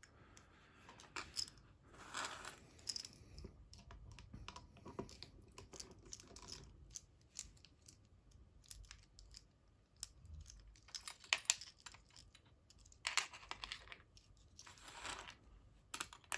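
Small metal tools handled against a padlock being taken apart: a run of light, irregular clicks and taps, with a few short scraping rustles.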